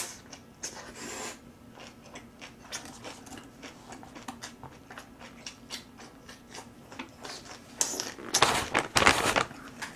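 Close-up chewing of kimchi, with many small wet mouth clicks. About eight seconds in comes a loud rustle lasting a second or two, paper tissue being pulled out and handled.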